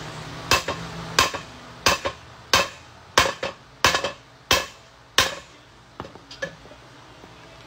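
Steel hammer blows on a driveshaft's U-joint yoke, about one and a half strikes a second, driving out a stubborn, tight U-joint. A few lighter taps follow near the end.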